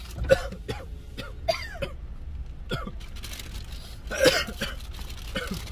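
People coughing and clearing their throats in short, separate bursts, the loudest about four seconds in, set off by the sharp fumes of a freshly opened spicy chili seasoning powder.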